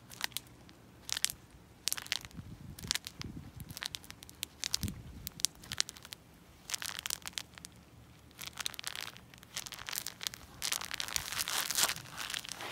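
Sandaled footsteps crushing a thick layer of mayflies (fishflies) on pavement, each step a burst of crunching and crackling as the insects pop underfoot. The crunches come singly at first and grow denser and longer in the second half.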